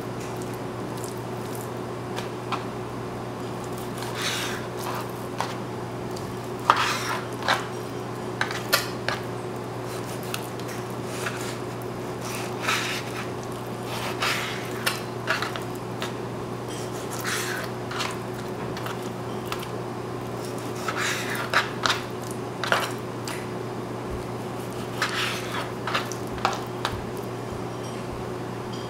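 Kitchen knife cutting raw chicken thigh on a cutting board: irregular short knocks and scrapes of the blade against the board, over a steady low hum.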